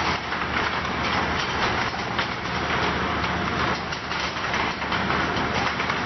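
CX-CXP ultrasonic bottle washing machine running: a dense steady hiss with rapid, irregular clattering and a low hum underneath.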